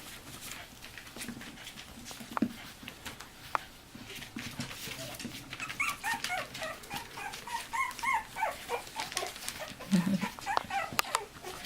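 Three-and-a-half-week-old Cairn terrier puppy whimpering, a run of short high squeaks in the second half, over faint scratching and handling clicks.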